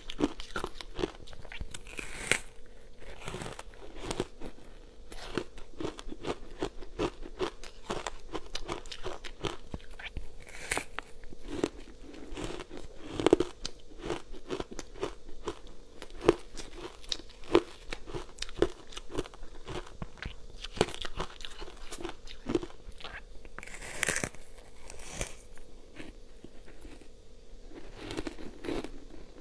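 Soft, powdery ice coated in matcha powder being bitten and chewed: a dense run of small crunches, with a few louder bites.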